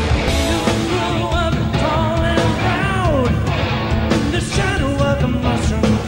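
Hard rock band playing live: a voice singing over electric guitars, bass guitar and a drum kit, with sliding sung notes.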